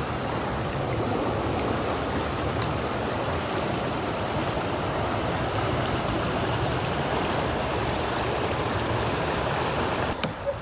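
Creek water rushing steadily, a continuous even wash of flowing water with a few faint sharp ticks; it cuts off abruptly near the end.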